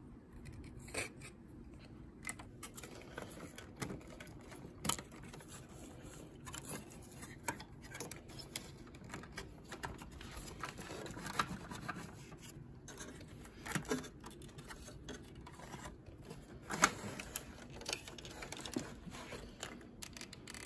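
Hands handling wiring and circuit boards inside a CRT monitor chassis: scattered small clicks, ticks and rubbing of wires and plastic, with one sharper click about three-quarters of the way through.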